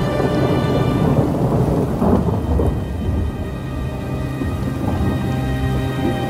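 Deep, continuous rumbling of a distant artillery barrage, with a swell about two seconds in, under dark sustained music chords.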